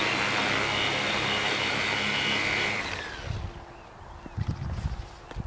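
Tricopter's electric motors and propellers running with a steady high whine, then spooling down and cutting out about three seconds in. Irregular low thumps follow.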